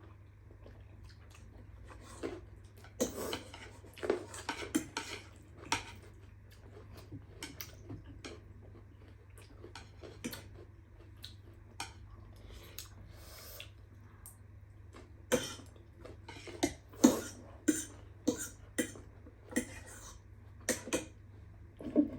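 Eating utensils, such as chopsticks, clicking and scraping against a bowl during a meal, in scattered clusters of sharp clicks. A faint steady low hum runs underneath.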